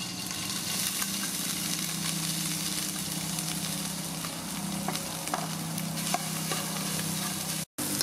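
Yellow pounded spice paste sizzling as it fries in hot oil in an aluminium pot, with a metal ladle stirring and scraping it and a few light taps. The sound cuts out for a moment near the end.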